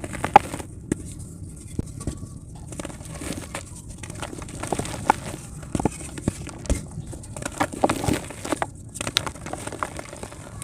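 Multani mitti (Fuller's earth clay) crumbling: a dense, irregular run of small cracks, crunches and taps over a low rumble.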